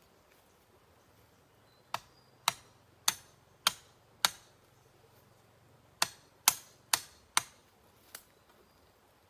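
Sharp strikes of a tool on bamboo, about two a second: a run of five, a short pause, then four more and a single lighter strike.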